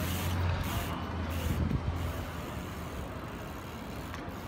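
City traffic noise: a heavy road vehicle's low engine hum loudest in the first two seconds, then easing to a steady background rumble.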